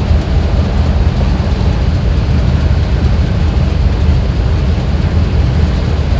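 A GMC Yukon's 6.0-litre V8 idling steadily with a low, even sound; the owner says the engine has a small random misfire.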